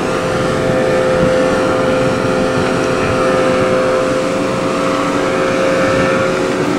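Wind rushing past high on a parasail tow, with a steady hum that holds one pitch throughout.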